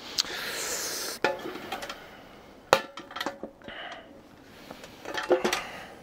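Large aluminium French army mess tins being handled: a brief rustle at the start, then a few metallic clinks and clanks, each with a short ring, the loudest about three seconds in.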